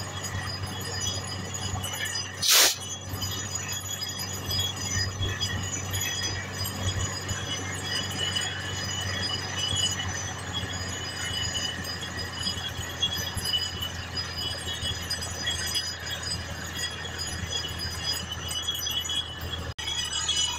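Truck-mounted borewell drilling rig running steadily while drilling: a low engine hum under high, steady ringing tones from the drill string. One short, loud burst of noise comes about two and a half seconds in.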